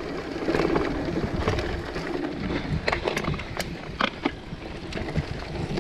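Mountain bike riding over a rough, washed-out dirt track: steady tyre and rushing air noise, with several sharp knocks and rattles from the bike over bumps in the second half.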